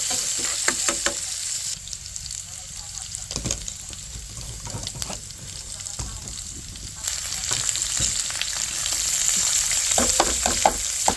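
Rain falling as a steady hiss, which softens for a few seconds starting about two seconds in, with scattered small taps and clicks.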